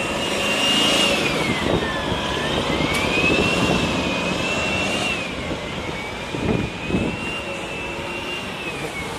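Jet engine running under test: a high whine that falls and rises in pitch several times over a steady noise.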